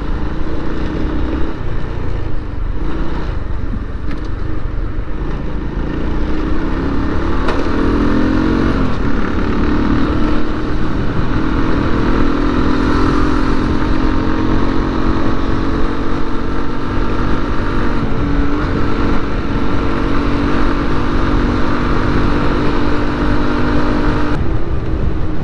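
Motorcycle engine running under way with heavy wind noise. The engine note climbs about seven seconds in and then holds steady.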